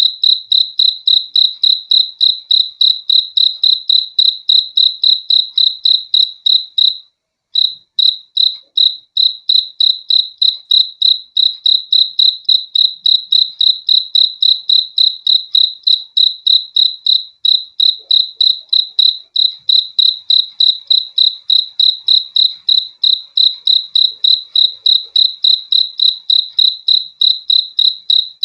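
A single cricket chirping on one high note, at a steady rhythm of about four chirps a second, with a brief pause about seven seconds in.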